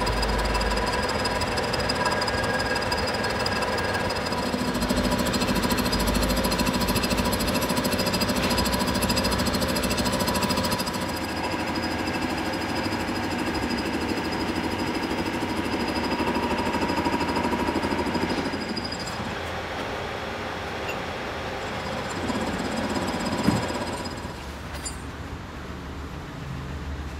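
Manual metal-turning lathe running and cutting steel: a continuous rattling machine noise with steady high whining tones from the cut. The sound changes character a few times, and there is a single sharp knock near the end.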